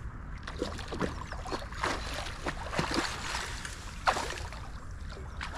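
Water splashing and sloshing in small irregular strokes, with a steady low rumble underneath.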